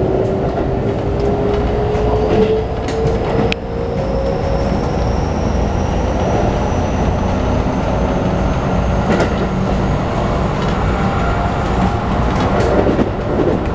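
Keikyu New 1000 series electric train under way, heard from inside the passenger car. The Toshiba IGBT-VVVF inverter and traction motors give a whine that slowly rises in pitch as the train gathers speed, over a steady rumble of wheels on rail. A few rail-joint clicks come through, and the low part of the whine fades after a few seconds.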